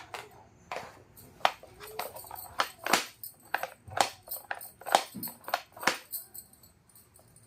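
Small hard plastic pieces of a miniature toy kitchen set clicking and tapping against each other as they are handled. There are about fifteen sharp, irregular clicks, bunched between about one and six seconds in.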